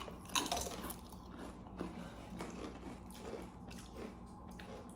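People chewing garlic shrimp flavoured Lay's potato chips, with irregular crisp crunches that are strongest just after the first bite.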